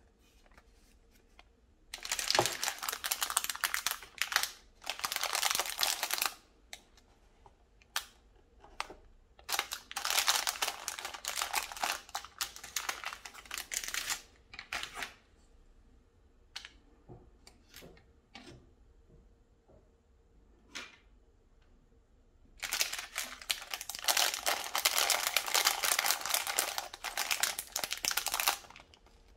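Sealed plastic bags of LEGO bricks crinkling as hands pick them up and handle them, in three long stretches with small clicks from the loose bricks shifting in between.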